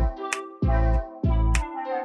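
Background music: deep bass notes that slide down in pitch, sharp clicks between them, and held chords.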